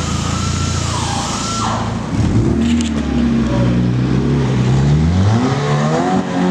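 2013 Scion FR-S's flat-four engine running through a newly installed Invidia N1 exhaust, revving, its pitch climbing from about two seconds in and rising and falling several times.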